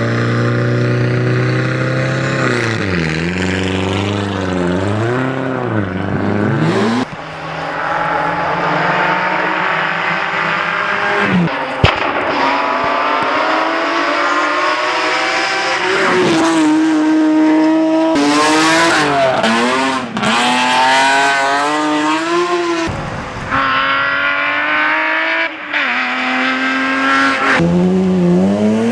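Rally cars at full throttle on a stage, one after another, their engines revving up and dropping back through gear changes and corners. A single sharp bang about twelve seconds in is the loudest moment.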